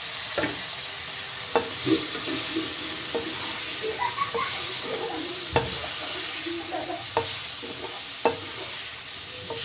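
Boiled rice balls frying in a kadhai of hot oil tempered with mustard and sesame seeds, a steady sizzle throughout. A perforated steel skimmer stirs them, clicking and scraping against the pan about once a second.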